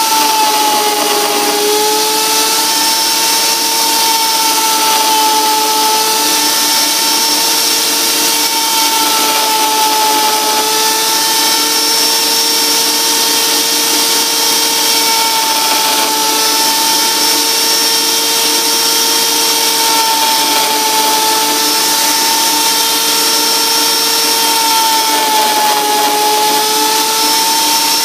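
Homemade lathe with wooden bearings, driven by a 3/4 hp 3450 RPM electric motor through a variable-pitch pulley, running steadily: a held whine that wavers slightly in pitch over an even hiss.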